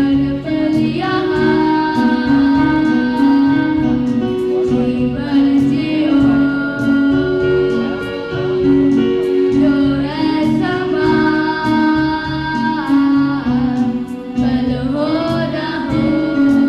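Group of school students singing a Hindi song together over instrumental accompaniment with a steady beat.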